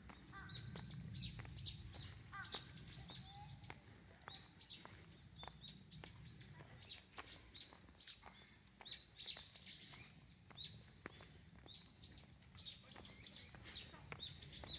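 Small birds chirping, many short high calls repeated in quick succession, faint.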